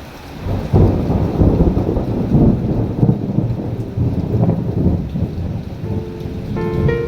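Thunder rumbling, rolling on for several seconds over steady rain. A few soft piano notes come back in near the end.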